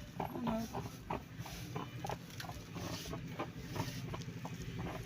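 Garment steamer running: a steady low hum with many short, irregular clicks and pops, several a second.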